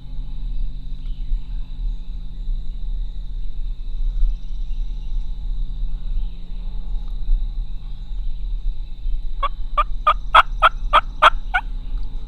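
Eastern wild turkey gobbler gobbling once, a quick rattling run of about eight notes that comes about nine and a half seconds in, over a steady low hum.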